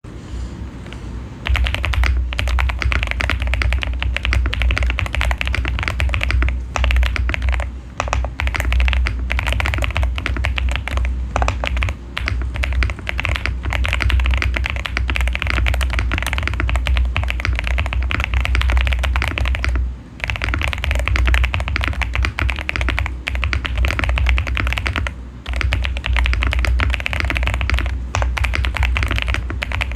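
Fast, continuous typing on a VGN V87 mechanical keyboard with Homoo Sea Salt switches on the letter keys and Cherry-profile Apollo keycaps, dampened with silicone case foam and PCB foam. The keystrokes start about a second and a half in and run with only a few short pauses.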